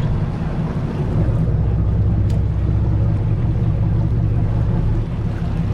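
Boat engine running steadily, a low drone, with wind noise on the microphone.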